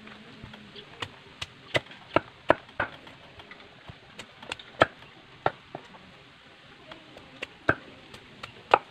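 Machete blade chopping and shaving the husk off a fresh bamboo shoot, irregular sharp chops at about two a second, some of them much louder than the rest.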